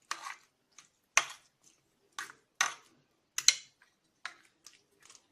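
A utensil clinking and scraping against a bowl while stirring a thick garlic, fig and olive oil mixture, in irregular knocks about two a second.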